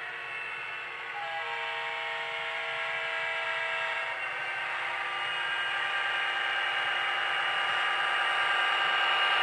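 The sound system of a Broadway Limited Paragon4 HO-scale EMD GP20 model diesel locomotive: the recorded engine runs with a steady high whine that grows louder as the model approaches. A horn chord sounds for about three seconds, starting about a second in.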